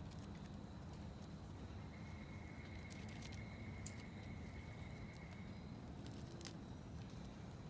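Crisp clicks of damaged succulent leaves being snapped off the plant, about a dozen at irregular intervals, over a steady low rumble.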